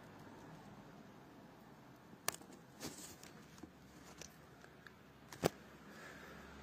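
Quiet room tone broken by a few faint clicks and two sharper clicks, one about a third of the way in and one later on.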